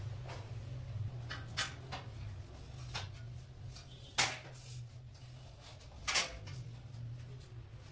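Metal bed-base frame sections knocking and clanking as they are lifted and set down, a few scattered knocks with two louder ones about four and six seconds in.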